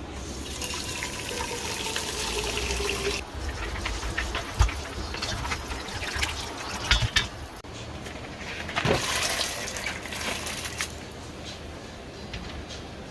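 Water running from a kitchen tap into the sink in two spells, one near the start and one about two-thirds of the way in, with knocks and clatter between them.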